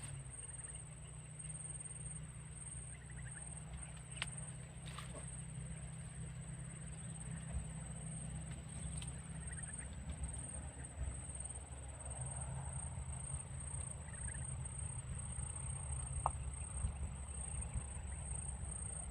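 A low steady engine drone that starts suddenly and runs on, with a thin constant high whine above it and a few faint clicks.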